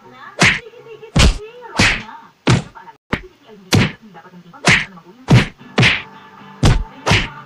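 A rapid series of loud punch-and-slap sound effects, about a dozen sharp whacks roughly every half second, over faint background music.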